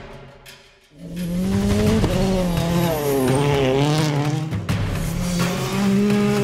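Rally car engine revving hard through a gravel corner, its pitch rising and falling with throttle and gear changes, with tyres sliding and throwing gravel. It comes in loudly about a second in, after a brief lull.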